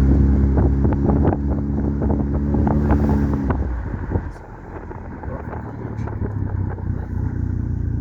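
Car heard from inside the cabin while driving: a steady low engine and road hum that drops away about three and a half seconds in, leaving a quieter rumble with scattered light clicks, then picks up again near the end.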